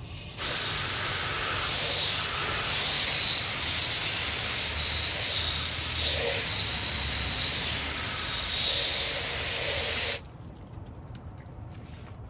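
Water from a hose spray nozzle hitting a chrome wheel and tyre, rinsing off wheel cleaner: a steady hiss that starts about half a second in and cuts off suddenly after about ten seconds.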